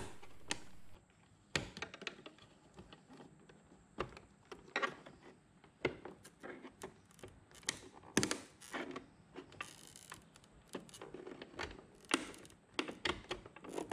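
Small flat-blade screwdriver prying around the edge of a Jeep Grand Cherokee's power side-mirror glass, its plastic backing clicking and tapping at irregular moments as it is worked loose from the mount. A brief scrape comes about ten seconds in.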